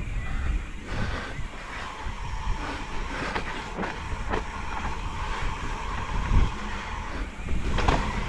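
Mountain bike rolling down a muddy dirt trail: tyre rumble and wind on the microphone, with irregular clicks and knocks from the bike rattling over bumps.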